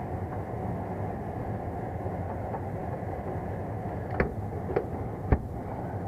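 Three sharp knocks about half a second apart near the end, the last the loudest, over a steady low rumble: the furnace's filter cabinet being closed up after a filter check.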